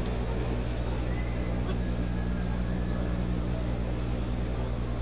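Steady low electrical hum, like mains hum on an old recording, with a few faint, brief high tones over it.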